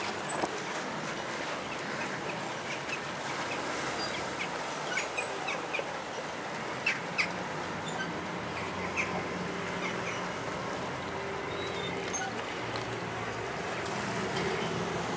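Motor cruiser's engine humming steadily under wind and water noise, the hum coming up about halfway through as the boat passes broadside. Short high chirps and clicks sound over it now and then.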